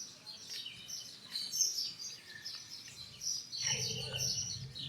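Small birds chirping and twittering in many quick, short, high notes, squabbling among themselves.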